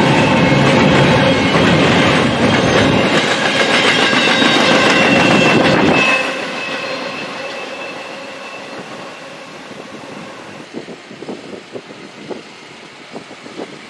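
Freight train of empty intermodal cars rolling past, wheels clattering with a few steady high squealing tones. About six seconds in the sound drops abruptly to a fainter rumble that fades away. Near the end only scattered light clicks remain.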